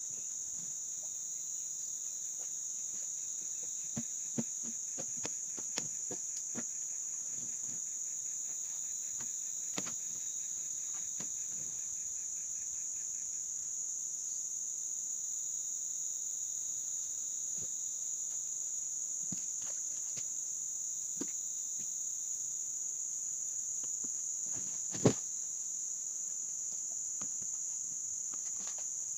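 Steady, high-pitched insect chorus, with a second, lower pulsed trill that stops about halfway through. Scattered light clicks and knocks, with one sharper knock near the end.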